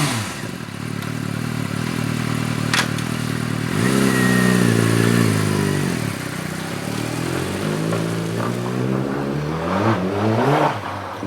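Suzuki GSX-R motorcycle's inline-four engine running, revved up about four seconds in and held for a couple of seconds before dropping back, then revved again briefly near the end. A single sharp click comes about three seconds in.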